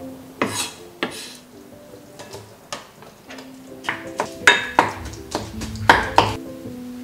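Wooden spatula mixing minced chicken in a glass mixing bowl, knocking against the glass several times in quick succession from about four seconds in, after two single knocks near the start. Soft background music plays throughout.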